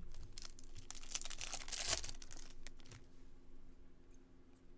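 Topps Chrome baseball cards being handled and shuffled by hand: crinkling and rustling with small clicks, loudest about two seconds in and fading toward the end.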